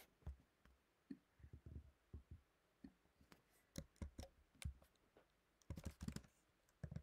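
Faint, scattered clicks of a computer keyboard and trackpad, with a quick run of keystrokes near the end as a short terminal command is typed.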